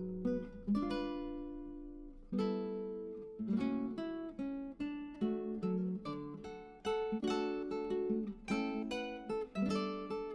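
Background music: acoustic guitar picked note by note, in a gentle melody.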